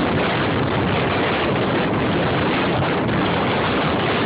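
Strong wind blowing hard across the microphone in the winds around a tornado: a loud, steady rushing noise that doesn't let up.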